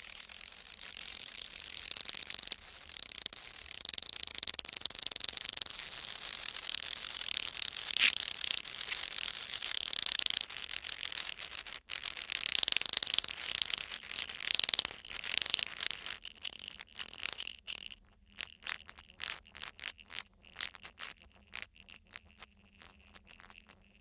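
Metal coins on dry ice squealing and chattering as the sublimating carbon dioxide beneath them makes them vibrate against the ice. The sound is a shrill, steady high tone over a dense rattle. About two-thirds of the way through it breaks up into short separate chatters that thin out near the end.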